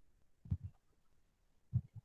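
Two soft, dull thumps about a second apart against faint room tone.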